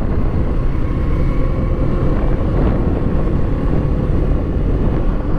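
Kawasaki Eliminator 450 SE motorcycle riding along, its parallel-twin engine running under a heavy, steady rumble of wind buffeting the rider's helmet microphone.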